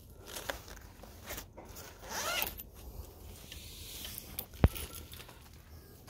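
Zipper on the Wonderfold W4 Elite wagon's removable fabric seat panel being pulled, with one main zipping sweep about two seconds in and a few fabric rustles. A sharp knock about four and a half seconds in is the loudest sound.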